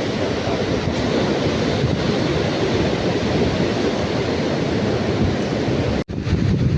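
Strong wind buffeting the microphone over the rush of large waves breaking on the shore: a steady, loud noise without any tone. It drops out for an instant about six seconds in.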